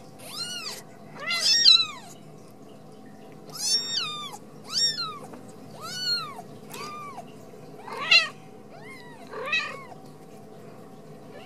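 Very young Ragdoll kitten mewing over and over, about ten high thin cries roughly a second apart, each rising and falling in pitch: crying in distress.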